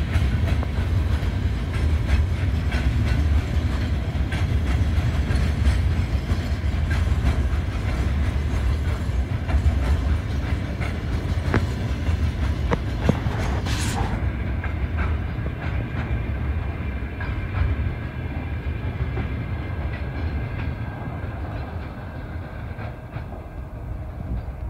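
Freight train of open-top gondola wagons rolling past: a steady low rumble with wheels clicking over the rail joints. The sound eases off near the end as the tail of the train passes and moves away.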